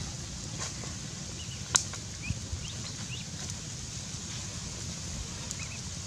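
Open-air ambience beside a wood cooking fire: a steady low rumble with a few scattered sharp clicks, the loudest a little under two seconds in, and several short high chirps.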